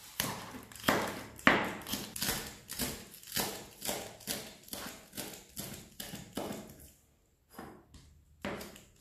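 Chef's knife shredding lettuce on a plastic cutting board: a steady run of crisp cuts, about two to three a second, that pauses briefly near the end.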